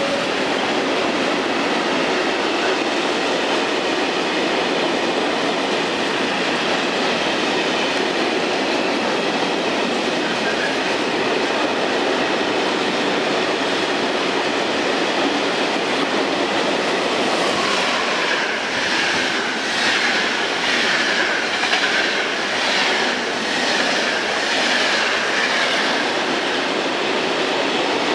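Trains running through a station at close range, one passing another, their wheels rolling on the rails in a steady loud rumble. About two-thirds of the way in, a rhythmic clatter of wheels over rail joints sets in, with a thin wheel squeal over it.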